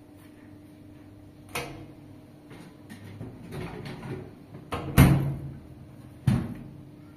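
A few sharp knocks and bangs, the loudest about five seconds in, with quieter handling and rustling noise between them.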